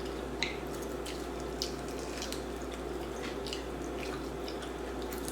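Close-up eating sounds: wet chewing and mouth clicks from biting into crispy dry-rub chicken wings, with two slightly louder clicks about half a second and a second and a half in, over a steady low hum.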